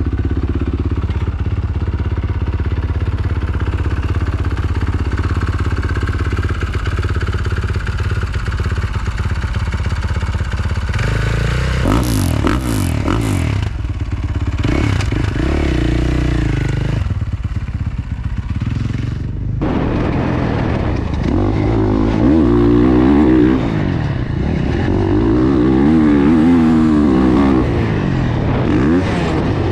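A Gas Gas 450 four-stroke single-cylinder motocross bike being ridden, its engine note rising and falling as the throttle is opened and shut, with a short throttle-off lull a little before two-thirds of the way through.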